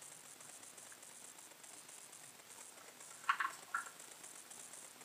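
Faint steady room hiss, with three brief soft handling noises a little over three seconds in as the camera is touched.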